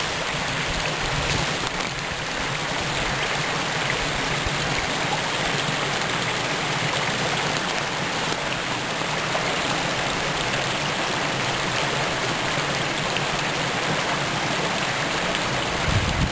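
Shallow woodland stream running over a rocky bed: a steady, even rush of water.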